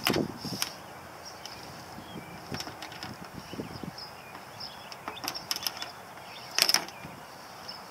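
Braided rigging lines and metal snap hooks of a kayak sail being handled as the mast stays are loosened: scattered light clicks and rattles, with a brief louder clatter near the end.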